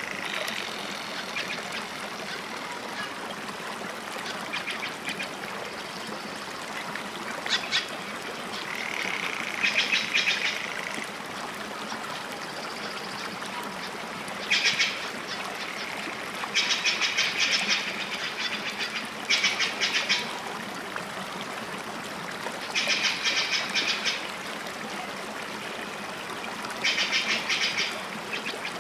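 Repeated short rattling animal calls, each a quick run of pulses lasting about a second, recurring every few seconds over a steady outdoor background.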